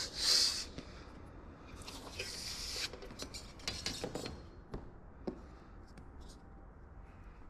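Rubbing and scraping sounds of hands handling and repositioning a workpiece on a work surface: three short rasping bursts, the loudest at the start, and a few light clicks and taps.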